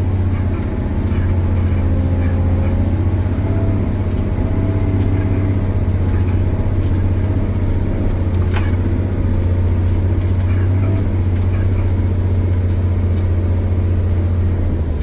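Large wheel loader's diesel engine running with a steady low drone, heard from inside the cab while the machine is still cold and warming up. A single sharp click sounds about halfway through.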